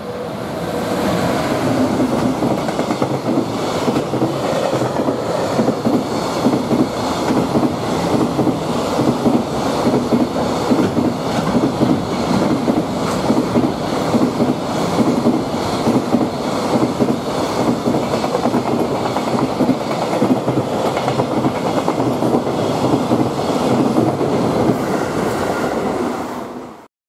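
JR Freight container train passing, led by an EF210-300 electric locomotive: a steady loud rumble with the rhythmic clickety-clack of the container wagons' wheels over the rail joints. The sound cuts off suddenly near the end.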